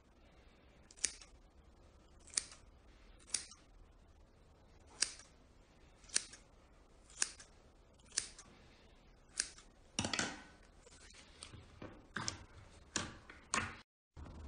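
Scissors snipping through a thick ball of slime: sharp snips about once a second, a longer, drawn-out cut a little past the middle, then several snips in quicker succession.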